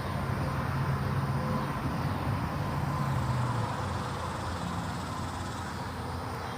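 A vehicle engine running with a low, steady hum over background noise; the hum eases a little past halfway.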